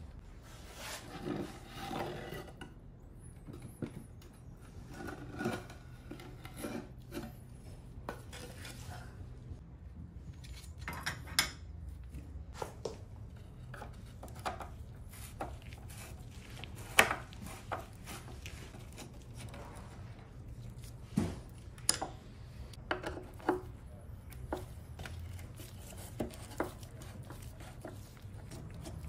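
Hand screwdriver working a screw out of an old wooden chair frame: scattered clicks, knocks and scrapes of metal on wood as the chair is handled and the driver turns, with a few sharper clicks standing out in the middle and latter part.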